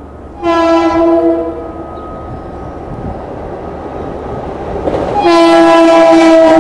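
Long Island Rail Road commuter train sounding its multi-tone horn in two blasts as it approaches a level crossing: a blast of about a second and a half about half a second in, then a longer blast from about five seconds in that is still sounding at the end. The rumble of the approaching train grows louder under the second blast.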